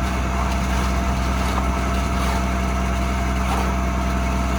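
Diesel engine of a concrete boom pump truck running steadily, a constant low drone.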